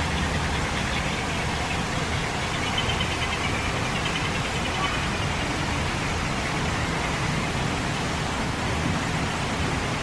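A steady, even rushing noise with no distinct events.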